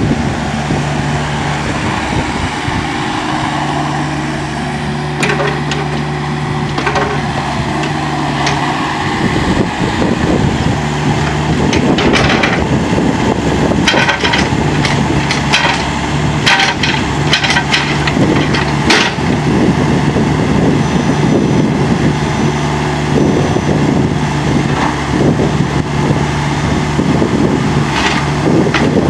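CAT 304.5 mini excavator's diesel engine running under working load as the boom swings and the arm and bucket are worked, its steady hum dropping out and coming back several times. A run of sharp clanks and ticks about twelve to nineteen seconds in.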